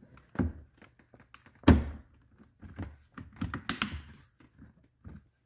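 Hands pressing and knocking a driver's airbag module into the hub of a carbon fiber steering wheel: a run of irregular thumps and plastic clicks, the loudest about two seconds in, as the tight-fitting airbag is pushed home.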